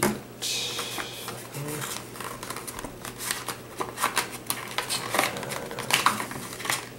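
Cardboard packaging rustling and scraping as a computer mouse and its USB cable are pulled out of a cardboard insert, with many small irregular clicks and taps.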